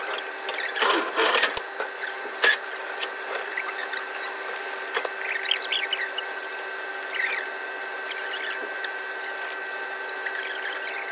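Kitchen working noise: a steady hum from kitchen equipment under scattered clicks, knocks and small squeaks from plastic containers and utensils being handled. A louder rustle comes about a second in and a sharp knock about two and a half seconds in.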